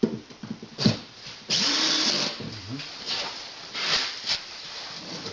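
Power drill or screwdriver running in one short burst, under a second long, about a second and a half in, typical of driving a self-tapping screw. Sharp clicks and knocks of tools and metal come before and after it.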